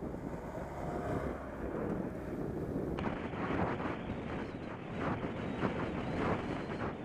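Wind rushing and buffeting over the microphone of a camera mounted on a bicycle on a fast road descent, a steady rumbling rush that gusts and flutters. The sound changes abruptly about three seconds in.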